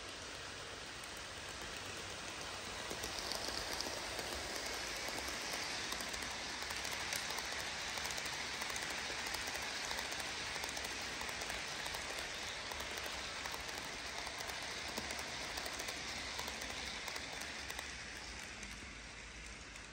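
An HO scale model freight train rolling past on sectional track. Its many small wheels make a steady clicking hiss that builds about three seconds in and fades near the end as the cars pass.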